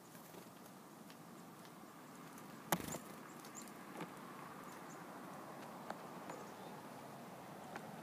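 A few scattered sharp taps over faint outdoor background, the loudest one just under three seconds in.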